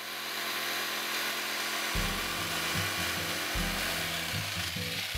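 A power tool running steadily with an even grinding noise that eases off near the end. Music with a stepping bass line comes in about two seconds in.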